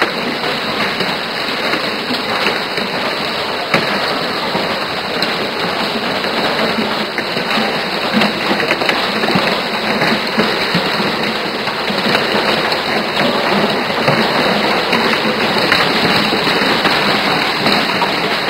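Heavy hailstorm: hailstones pelting the pavement and street in a loud, steady clatter of countless small impacts.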